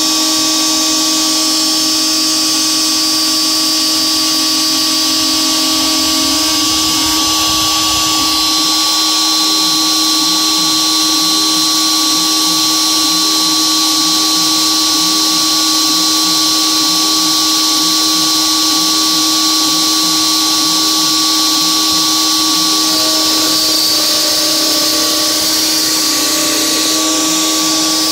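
DeWalt DWP-611 router spindle of an X-Carve CNC running steadily while its 1/8-inch two-flute carbide endmill takes shallow roughing passes in 6061 aluminium, dry with no coolant: a steady motor whine with the cutting noise of the endmill in the metal.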